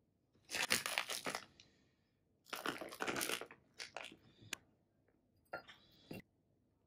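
Clear plastic bag of frozen shrimp crinkling as it is handled, in two bursts about a second long. Then a few sharp clicks as the frozen shrimp drop into a small ceramic bowl.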